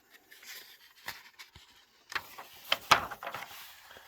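Paper pages of an instruction booklet being turned and handled: rustling with several sharp crackles, the loudest about three seconds in.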